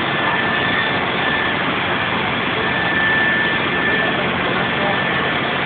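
Steam locomotive No. 186 standing with steam up, giving a steady, loud hiss of escaping steam.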